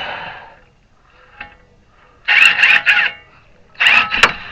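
Impact wrench run in two short bursts, about two seconds in and again near the end, on a steering-arm nut that just spins instead of tightening: the stud's taper won't grab in its seat.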